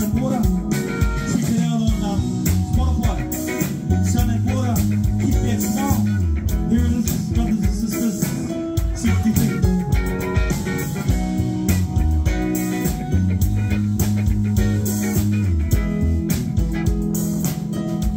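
Live band playing, with electric guitar, bass guitar and drums.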